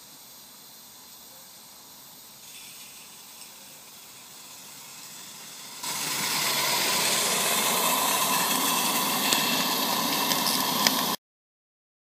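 Steady hiss from a 16mm-scale live-steam Hunslet model locomotive working in snow. It is faint at first, much louder from about six seconds in, with a few small clicks near the end, and cuts off abruptly.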